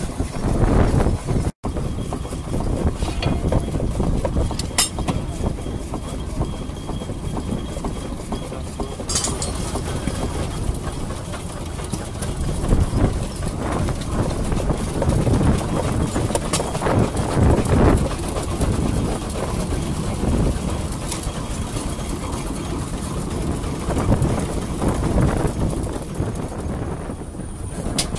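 Vintage steam engines running: a steady low mechanical sound with a few sharp clicks.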